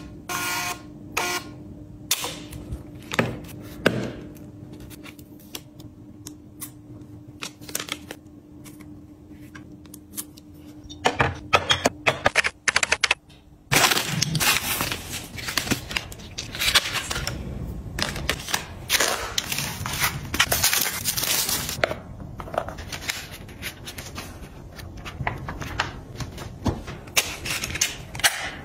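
Scattered clicks and taps from handling a portable label printer over a faint steady hum. From about 14 seconds in, continuous crinkling and rustling of a plastic mailer bag and plastic wrapping being opened and unpacked.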